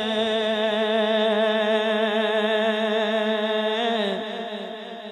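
A man singing a naat into a microphone, holding one long steady note at the end of a sung line. It breaks off about four seconds in and fades away in a reverberant tail.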